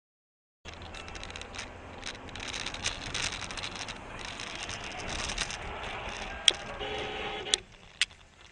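Dashcam audio from inside a moving car, starting abruptly after a moment of silence: steady road and engine noise with crackling rattles. Three sharp clicks come in the last two seconds, the first the loudest, and the noise drops off after the second.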